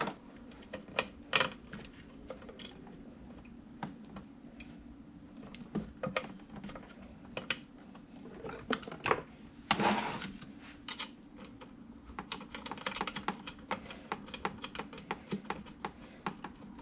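Scattered light clicks and rattles of electrical cables and plastic connectors being handled and fitted, with a brief rustle about ten seconds in and a quicker run of small clicks near the end. A faint steady low hum runs underneath.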